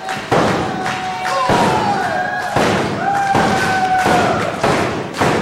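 Wrestling crowd making loud, sharp thuds about once a second, with long held shouts from spectators between them and one shout that falls in pitch.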